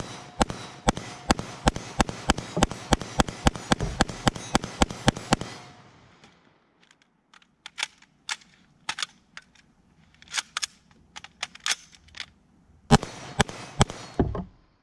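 AR-15 carbine fired in a fast string of semi-automatic shots, about four a second, for the first five and a half seconds. Several seconds of fainter, scattered sharp cracks follow, then a final quick string of shots lasting about a second and a half near the end.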